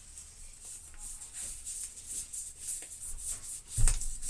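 Paper backing of 120 roll film rustling as it is wound and tightened onto the spool by hand, in repeated short rubbing strokes. A single thump comes near the end.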